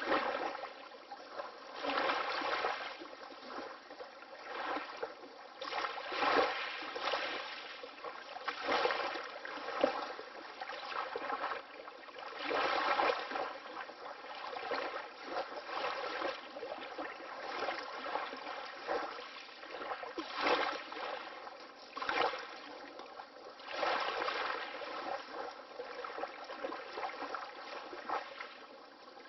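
Small waves of water lapping, with soft splashes swelling and fading irregularly every one to three seconds.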